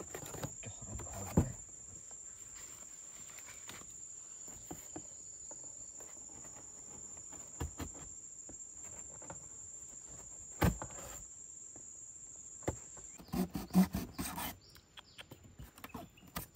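An insect drones on one steady high-pitched tone that cuts off about thirteen seconds in. Over it come knocks and rustling as a cardboard box is handled: sharp knocks a second in and near eleven seconds, and a cluster of louder thuds and scrapes near the end.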